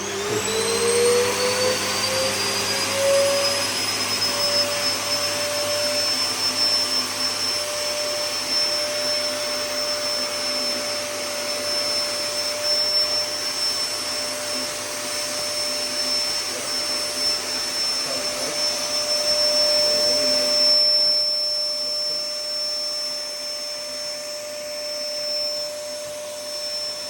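Hoover Power Pro 2300-watt drum vacuum cleaner switched on, its motor winding up with a rising whine over the first few seconds and then running at a steady high whine over the rush of air. About 21 seconds in, the airflow hiss drops and the running gets a little quieter.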